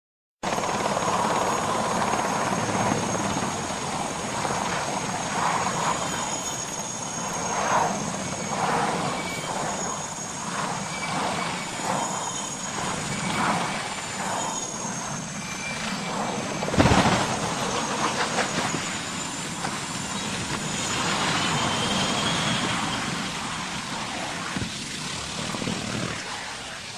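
Aircraft engine noise with a thin, wavering high whine over a steady rush. There is a single loud bang about seventeen seconds in.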